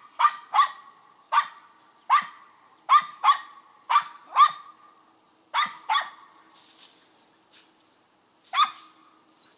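Mountain Feist squirrel dog barking at the base of a tree: short, sharp barks in uneven bursts, about eleven in all, with a long pause before the last. This is the steady barking of a treeing dog.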